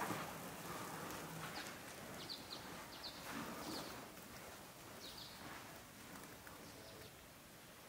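Faint outdoor ambience with a few short, high chirps scattered through the middle.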